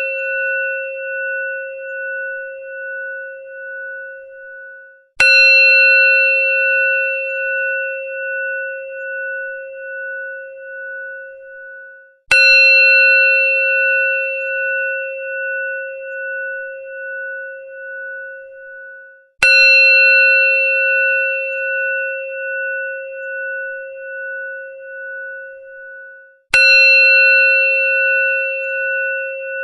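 Temple bell struck four times, about once every seven seconds. Each strike rings out in a clear, bright tone that fades with a slow wavering pulse and stops just before the next strike.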